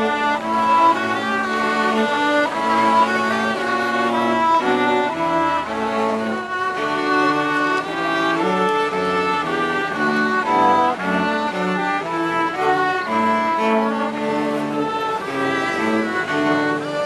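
A small bowed-string ensemble with a cello plays a melodic piece: sustained low notes under a moving higher melody.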